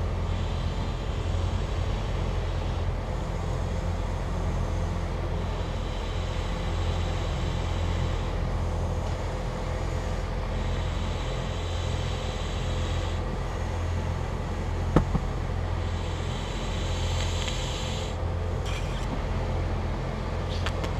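Someone blowing long breaths by mouth into the inflation tube of a folding kayak's side sponson, each breath a hiss of two seconds or so with short pauses between, over a steady low hum. A sharp click comes about fifteen seconds in and a few faint clicks near the end.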